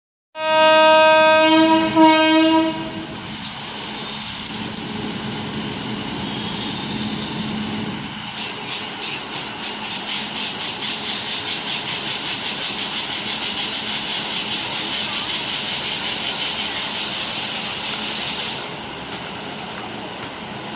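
WAP7 electric locomotive sounding its horn: a loud blast that breaks briefly into a shorter second one. Over the locomotive's steady hum, a fast-pulsing high hiss then starts about eight seconds in, lasts roughly ten seconds, and stops suddenly near the end.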